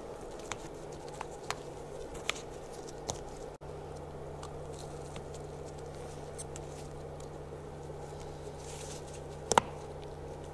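Small clicks and light rubbing as rubber dust boots are worked onto metal brake caliper pistons by gloved hands, over a steady low hum. The sharpest click comes near the end.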